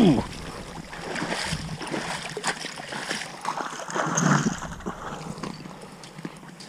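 A hooked walleye splashing and thrashing at the water's surface as it is reeled in and pulled out onto the ice, in irregular splashes, the loudest right at the start and another about four seconds in.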